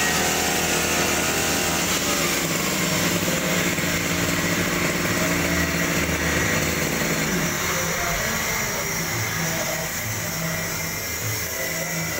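Backpack brush cutter's small petrol engine running fast, spinning the blade of a rice-cutting drum attachment. About seven seconds in it drops in pitch and settles to a lower, steadier speed as the throttle is eased off.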